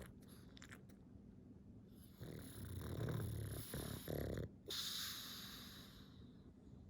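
A pug snoring: a loud, rough, low snore starts about two seconds in and breaks off twice, then gives way to a hissing breath that fades away.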